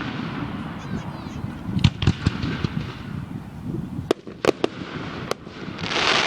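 Aerial fireworks bursting: several sharp bangs a second or so apart over a low rumble, then a louder rush of noise near the end.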